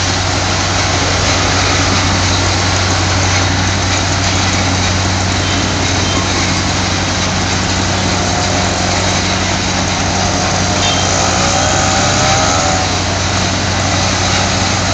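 Truck-mounted spray-injection pothole-patching machine running steadily: a constant low engine hum under an even rushing hiss of air and material jetting from the hand-held spray lance.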